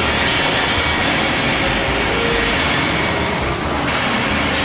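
Loud, steady industrial machine noise: a dense, even rumble and hiss with faint humming tones in it and no separate knocks.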